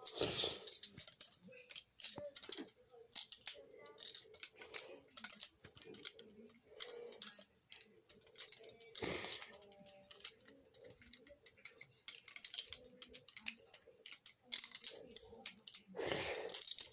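Balisong (butterfly knife) being flipped: its handles swinging round and clacking together, a fast, irregular run of sharp metallic clicks and rattles.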